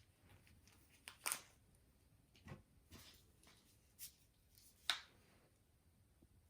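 Faint handling noises: about six short clicks and scrapes, spaced irregularly, against near silence.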